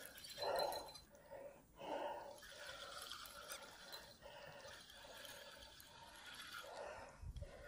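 Fishing reel being wound: a faint mechanical whirring in soft pulses, about one a second.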